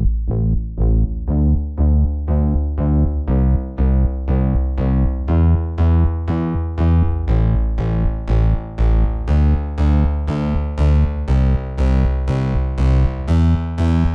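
Background music: an electronic track with a steady pulse of short, quickly fading keyboard-like notes over a deep bass.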